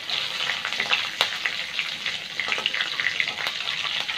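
Chopped green chillies, cumin and asafoetida sizzling and crackling in hot oil in an iron kadai. A slotted steel spoon stirs them and knocks against the pan now and then: one sharp click at the start, another about a second in, and one more near the end.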